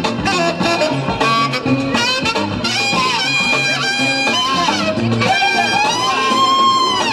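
Upbeat music with brass horns over a repeating bass line, played loud.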